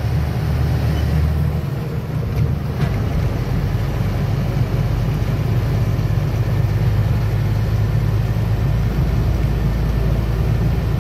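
Truck engine running and road noise heard from inside the moving cab, a steady low rumble.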